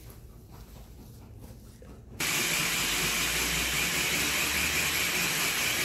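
A silicone spatula scraping quietly inside a plastic food-chopper bowl, then about two seconds in a small press-top electric food chopper starts suddenly and runs steadily, pulsing a thick cream cheese filling.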